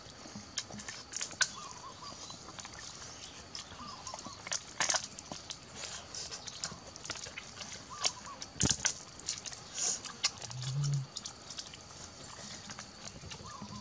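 Close-up eating sounds of grilled duck being chewed off the bone by hand: an irregular run of short wet clicks and lip smacks, with a brief low hum about three-quarters of the way through.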